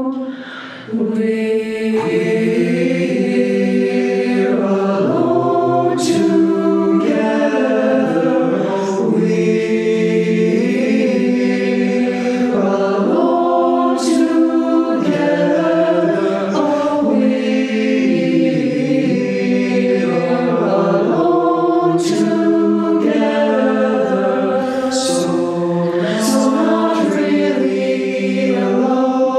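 Mixed high school choir of girls' and boys' voices singing in several-part harmony. A short drop in level comes about a second in, and sharp, hissing sung consonants land together several times.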